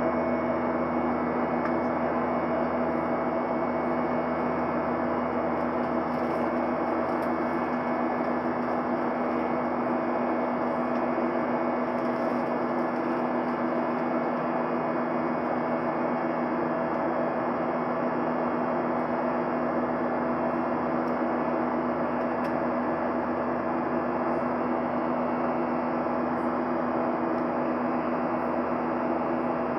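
Steady cabin drone of a Boeing 737-900 heard from inside the cabin: the hum of its CFM56-7B engines and the rush of air, with a few steady tones running through it and no change in level.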